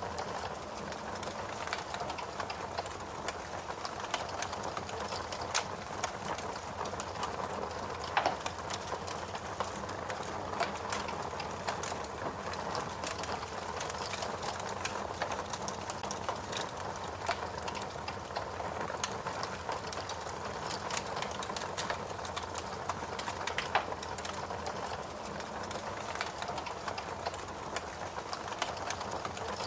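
Wood fire burning with a steady hiss and frequent irregular crackles and sharp pops.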